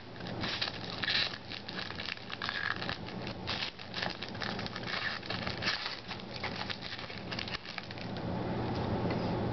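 Trading cards being handled and flipped through in the hands: a dense run of light clicks and rustling of card stock that thins out near the end.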